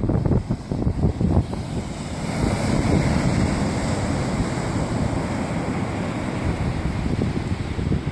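Ocean surf breaking and washing up a sandy beach, with wind buffeting the microphone. The wind rumble is heaviest in the first couple of seconds, then the hiss of the surf wash takes over.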